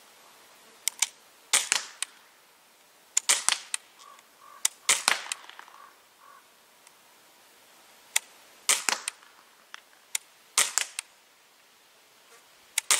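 Daisy Model 74 CO2 BB rifle firing: a string of sharp pops, about a dozen in all, some coming in quick pairs a few tenths of a second apart.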